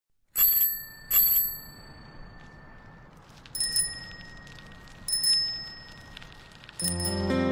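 Bicycle bells ringing: two ringing dings about three quarters of a second apart near the start, then three quick, higher-pitched double dings about a second and a half apart. Acoustic guitar music comes in near the end.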